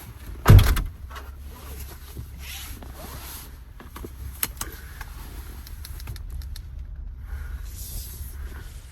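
A heavy thump, typical of a minivan door being shut, about half a second in, then a low steady rumble with a few light clicks.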